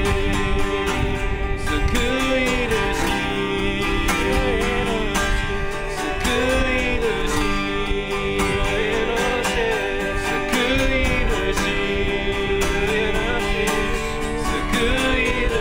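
Acoustic guitar strummed as the accompaniment to a sung worship song, the voice carrying a slow, wavering melody.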